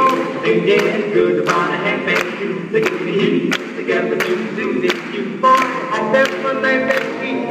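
Live swing band playing at a steady beat of about two strokes a second, with melody lines moving over the rhythm.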